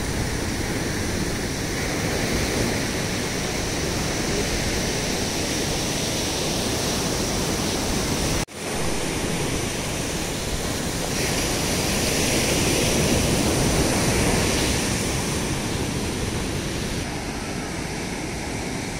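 Sea surf breaking and washing up the beach, a steady rushing noise that swells somewhat in the middle and drops out for an instant about eight and a half seconds in.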